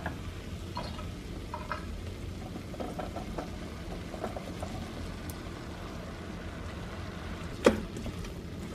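Quiet kitchen work sounds: a few faint ticks from a hand-held can opener cutting round a can of kidney beans, then the beans poured from a bowl into the stainless steel inner pot of an Instant Pot. Near the end a wooden spoon starts stirring the chilli and knocks once, sharply, against the pot.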